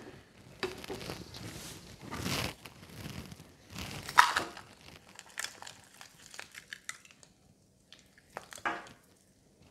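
Intermittent rustling and crinkling of things being handled, with a few light clicks; it thins out near the end.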